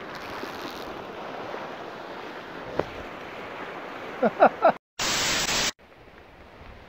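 Surf washing against a rocky shoreline as a steady hiss, with a few short cries just after four seconds in. Near the end the sound cuts out for a moment, then comes a sudden burst of loud hiss under a second long at a cut to the next scene, followed by fainter outdoor noise.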